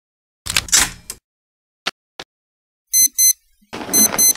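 Digital wristwatch alarm beeping in high double beeps, two quick beeps about once a second, starting about three seconds in. Before it there is a short burst of noise near the start and two faint clicks.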